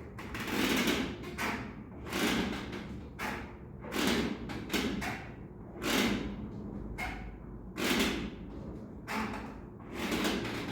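Heavy church bell being rung up, swinging higher on its wheel and headstock, with a rushing thud about every two seconds as it swings back and forth.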